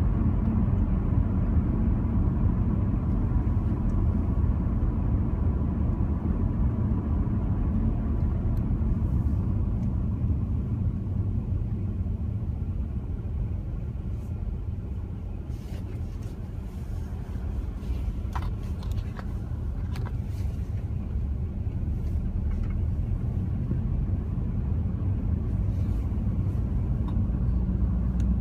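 Steady road noise inside a moving car on a wet road: low rumble of the tyres and engine with a hiss from the wet asphalt, dipping somewhat for a few seconds about halfway through.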